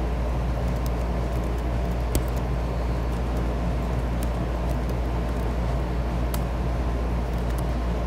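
Steady low background rumble with scattered sharp clicks from computer keyboard keys being pressed.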